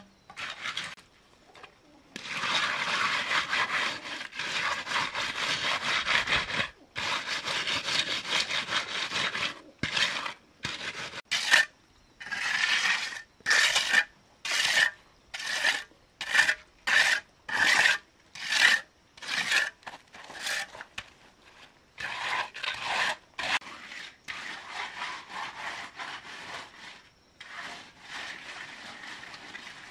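Hand float rubbing over wet concrete as the surface is smoothed: a long continuous pass, then a run of short back-and-forth strokes about one and a half a second, softer near the end.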